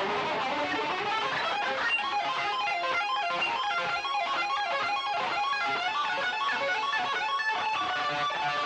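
Soundtrack music led by electric guitar, with a busy run of short notes stepping up and down at a steady level.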